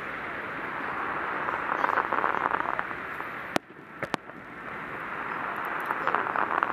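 Fireworks display: a steady wash of crackling noise that swells twice, with three sharp bangs of bursting shells a little past halfway.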